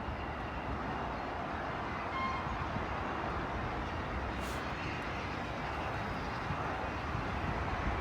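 A train running by: a steady rolling rumble and rush of noise, with a brief faint tone about two seconds in.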